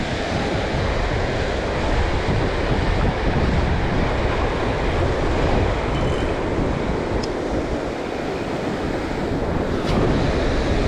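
Shallow ocean surf washing and breaking around the wader, with wind rumbling on the microphone.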